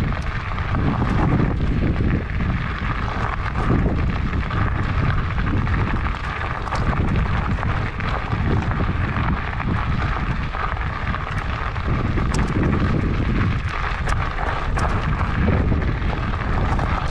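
Wind noise buffeting a handlebar-mounted GoPro's microphone as a fatbike rolls along a loose gravel track. Through it come the fat tyres crunching over the gravel and scattered small clicks and rattles.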